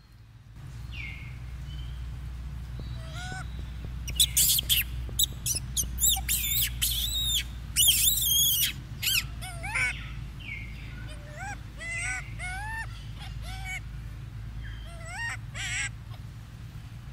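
Macaque calls: a string of short squeals and shrill screeches that rise and fall in pitch, coming in quick bunches from a few seconds in until near the end, over a steady low rumble.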